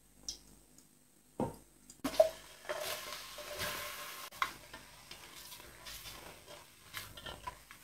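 A few knocks against the pressure cooker, then sliced onions sizzling as they are tipped into the hot oil. After that, a spatula stirs them, with small scrapes and taps against the aluminium pot.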